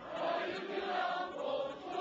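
A choir singing, holding long notes together.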